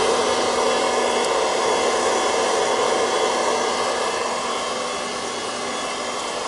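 Proctor-Silex hot-air popcorn popper running, its fan blowing hot air with a steady whir, easing slightly toward the end. The kernels are heating but not yet popping.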